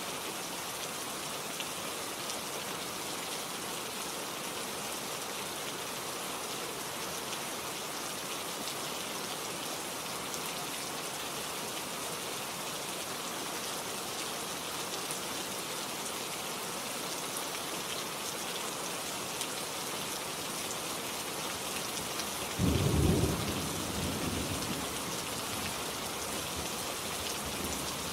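Steady rain falling. About three-quarters of the way through, a sudden loud clap of thunder breaks in and rumbles off over a couple of seconds.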